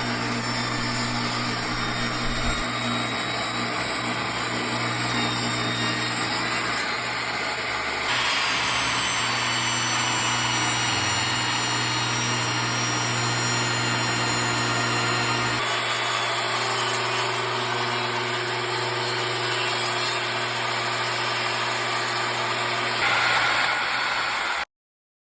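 SKIL portable job-site table saw running, its motor humming steadily. The sound changes abruptly three times, about a third of the way in, past the middle and near the end, then cuts off just before the end.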